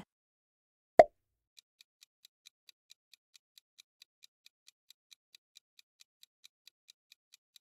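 A single short pop sound effect about a second in, then a faint countdown-timer tick sound effect, clock-like ticks at about four to five a second.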